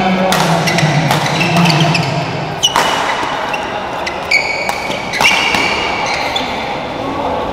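Badminton rally: rackets striking the shuttlecock with sharp cracks roughly every second, with sneakers squeaking on the court floor between hits.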